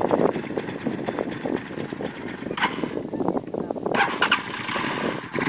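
Small motorcycle engine running at low speed as the bike moves off carrying two riders, with a harsher, louder spell near the end.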